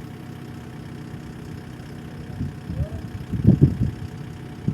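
An excavator's diesel engine idling steadily, with a few louder, irregular low surges about halfway through.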